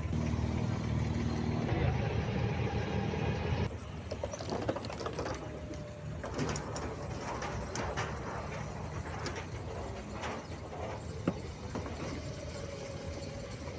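Night outdoor ambience. A steady low engine hum for the first few seconds, then after a sudden cut a quieter mix of scattered clicks and faint background voices.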